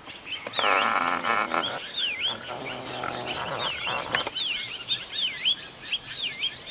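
A bird repeating a short swooping call that dips in pitch and rises again, over and over, above a steady high insect drone. Twice, in the first half, a longer, lower drawn-out call from another animal sounds.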